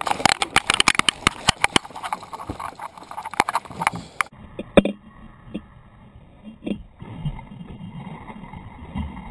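Rapid, irregular clicking and knocking of fishing tackle and kayak gear for about four seconds while a big hooked largemouth bass is fought on a baitcasting rod. After that come a few isolated knocks, then low rumbling noise near the end.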